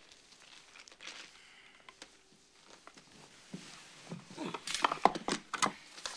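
Quiet room for a few seconds, then from about three and a half seconds in a quick run of rustles and clicks as a small box is handled and opened.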